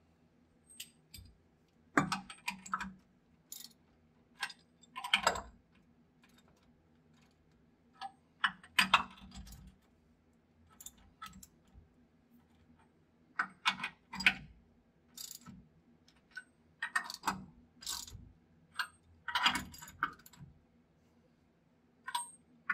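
Hand ratchet and socket clicking and clinking in short irregular bursts while tightening the nuts on new leaf-spring U-bolts on a pickup's rear axle.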